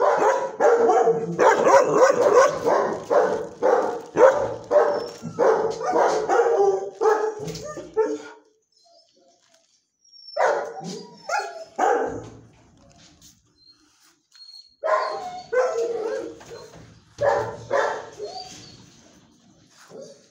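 Dog barking in quick runs of several barks a second, with a pause of about two seconds partway through and a quieter spell before the barking picks up again.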